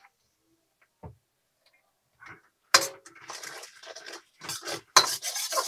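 Metal ladle clanking and scraping against a steel wok as chopped onions are stir-fried. It starts a little under three seconds in, with two sharp clanks.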